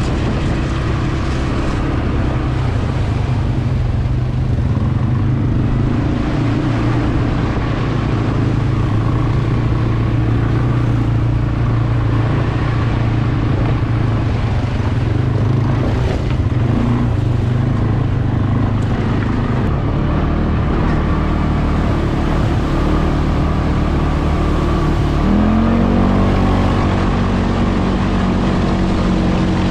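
A CFmoto CForce 520 ATV's single-cylinder engine runs steadily under way. About 25 seconds in, its pitch rises sharply and then stays higher.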